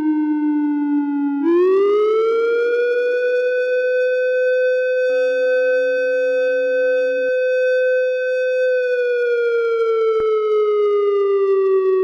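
US military base wail siren sounding Alarm Red, the alert for a sustained, complex or coordinated attack. Its tone rises sharply about one and a half seconds in, holds a high steady pitch, then glides slowly down near the end; a fainter second steady tone joins briefly in the middle.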